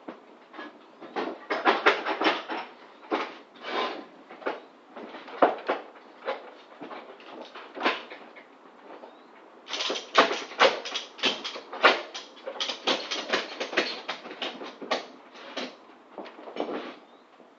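Ratchet tie-down straps being worked to secure a load: irregular runs of quick metal clicks and rattles, thickest about ten seconds in.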